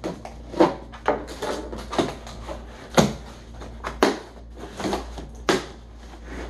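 Cardboard box being handled and opened on a table: a series of sharp knocks and scrapes, roughly one a second, as the tape and end flap are worked loose.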